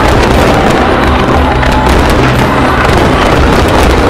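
Fireworks display going off densely: many aerial shell bursts and crackling effects overlap into a continuous, loud run of bangs and crackle, with music playing underneath.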